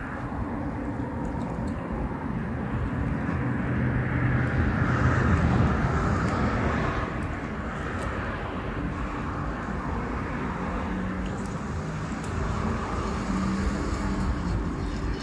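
Steady outdoor rumble of distant engine noise, swelling and fading about four to seven seconds in.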